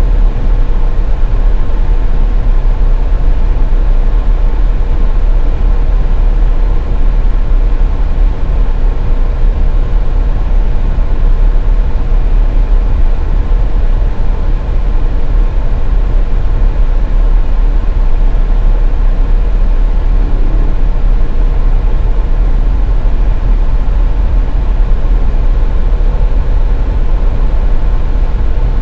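Steady road and engine noise of a car driving on a highway: a constant deep rumble with a faint steady hum, unchanging throughout.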